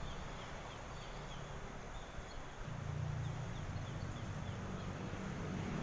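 Outdoor ambience: faint, repeated short high chirps, with a low engine hum from a passing vehicle that comes in about halfway through and keeps going.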